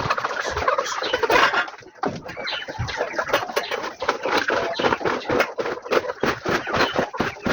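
A flock of chickens clucking, louder for the first two seconds, with many short clicks throughout.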